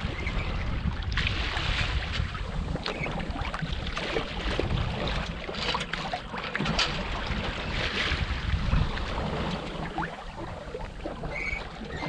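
Water rushing along the hull of a Contessa 26 sailboat under sail, with wind buffeting the microphone in a steady low rumble.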